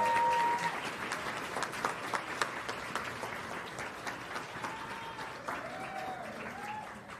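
Audience applauding, the clapping fading gradually, with a few voices calling out over it.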